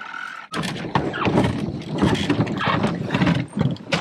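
Canoe being pushed through dense dry marsh grass, the stems scraping and rustling along the hull in a dense, crackling rush that starts about half a second in.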